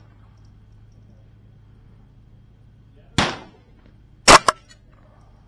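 .22 rimfire rifle shots: a quieter report about three seconds in, then a loud, sharp shot about four seconds in, followed a moment later by a second, smaller crack.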